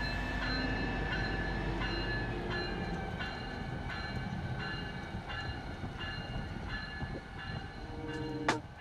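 Narrow-gauge White Pass & Yukon train running: a steady rumble of wheels on rail, with high ringing tones that come and go about every half second.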